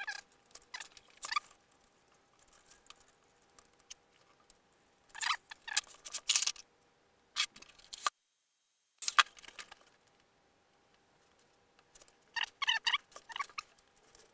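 Intermittent handling noise: clicks, rustles and scrapes of hands working antenna cables, SMA connectors and a thin metal rod into a foam model-plane fuselage. The noises come in short clusters, busiest about five seconds in and again near the end.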